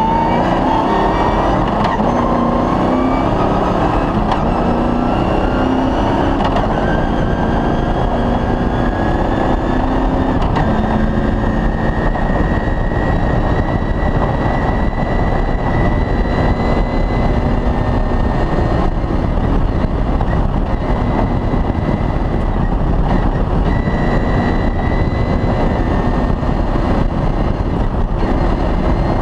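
Off-road rally car's engine running hard at speed, its revs climbing in the first few seconds and then holding fairly steady, over a constant din of tyre and chassis noise.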